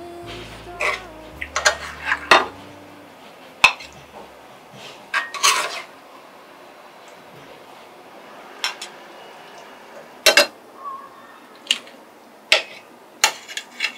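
A metal spoon scraping and clinking against a cast-iron skillet while scooping eggs in tomato sauce, then clinking on a ceramic plate near the end. The clinks come singly and irregularly, about a dozen in all.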